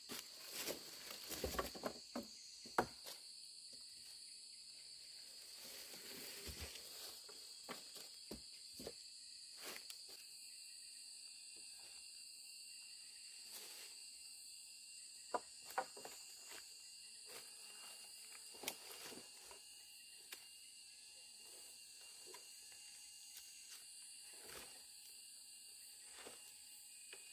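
Steady high insect chorus in the background, with scattered short clicks and knocks: a cluster in the first few seconds and two sharper knocks about fifteen seconds in.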